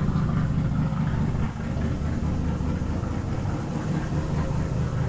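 1956 Chevrolet Bel Air's original 265 V8 idling steadily through its dual exhausts, running smoothly on its own shortly after a cold start.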